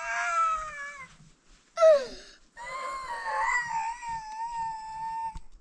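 A young child crying in high wails: a falling cry, a short falling one about two seconds in, then a long wavering held cry of about three seconds.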